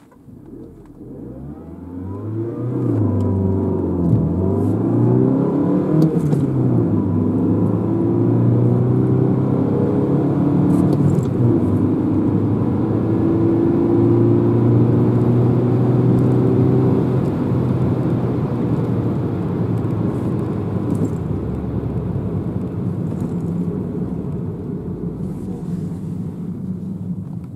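Engine and road noise heard inside the cabin of a 2012 Mini One 1.6 four-cylinder (75 hp) accelerating hard from a standstill. The engine note climbs and drops back at each gear change in the first few seconds, then climbs steadily and more slowly, and eases off near the end as the car slows.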